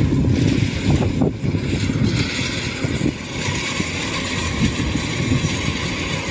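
Kubota DC-93 rice combine harvester running while cutting rice: a steady engine rumble with a rushing hiss that grows stronger about two seconds in.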